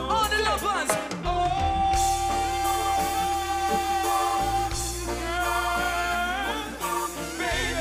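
Live reggae band with a male singer holding one long note for about three seconds, with quick wavering vocal runs before and after it, over steady bass and drums.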